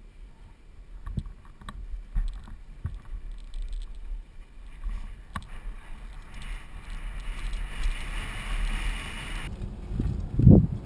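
Mountain bike rolling fast down a rough dirt trail, heard from a helmet-mounted camera: a low rumble of tyres and wind with scattered knocks from bumps, and a hiss over a few seconds in the second half. Near the end, heavy wind buffets the microphone.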